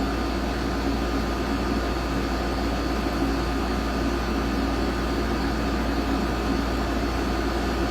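Steady mechanical hum with a low drone and a few faint steady tones above it, unchanging throughout.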